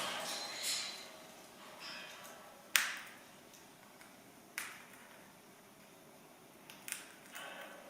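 Three sharp clicks or knocks about two seconds apart, the first the loudest, with a few faint soft rustles between them.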